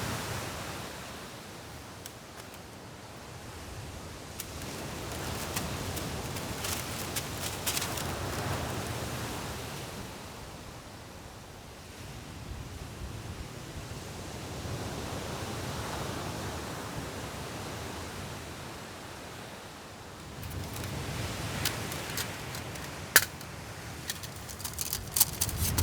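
Sea waves washing onto the beach, rising and falling in slow swells every several seconds, with scattered small clicks and taps and one sharper tick near the end.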